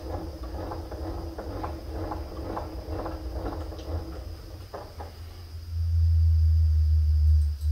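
Hand tool clicking and knocking against a milling-machine vise while the vise is being squared to the table, a few strokes a second, over a steady hum. For the last couple of seconds a louder low rumble takes over.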